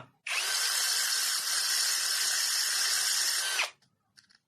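Electric drill spinning a homemade sandpaper disc while a small screwdriver tip is ground against it: a steady whirring hiss that runs for about three and a half seconds and then stops abruptly.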